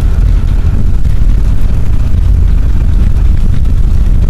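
Car driving, heard from inside the cabin: a loud, steady low rumble of engine and tyres on the road.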